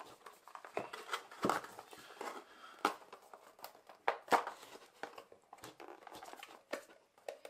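A camera box and its plastic and cardboard packaging insert being handled and pulled apart: irregular rustling and scraping with scattered sharp clicks and taps.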